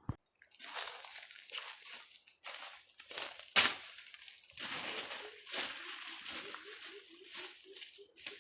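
Dry leaves and brush rustling and crunching in irregular bursts as they are handled or trodden through, with one loud sharp snap about three and a half seconds in. A faint, fast low pulsing joins in the second half.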